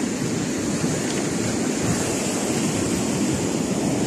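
Sea waves washing onto a pebble beach: a steady rushing noise.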